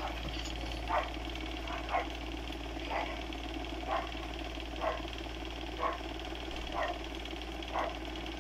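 A dog barking in a steady rhythm, one short bark about every second, over a constant low hum.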